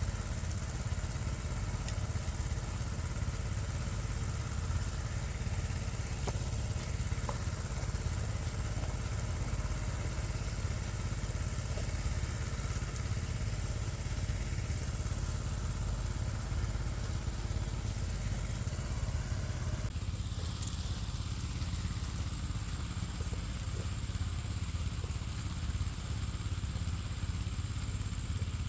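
A small engine running steadily at an even pace, with a deep low hum.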